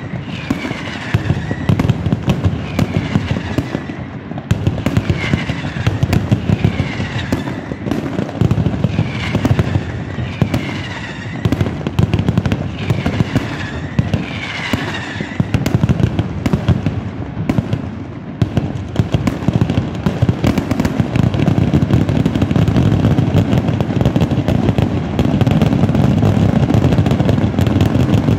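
Mascletà firecracker barrage: rapid, continuous sharp bangs, with repeated falling whistles every second or two through the first half. From about twenty seconds in the bangs close up into a denser, louder, unbroken rumble.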